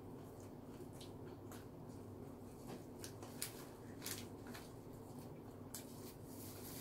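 Faint mouth sounds of a person chewing pizza: irregular soft clicks and wet smacks, one a little louder about three and a half seconds in, over a low steady room hum.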